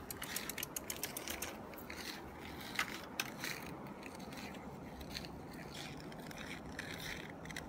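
Footsteps crunching on packed snow and salted ice: a quick run of crisp crunches, two of them louder about three seconds in, thinning out in the second half.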